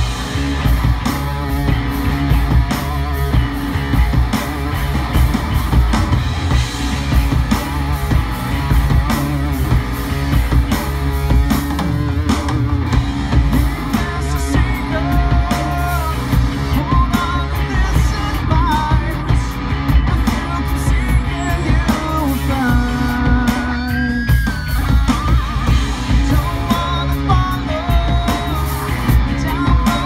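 Live rock band playing: electric guitars, bass and drum kit, with a male lead singer's vocal over the top.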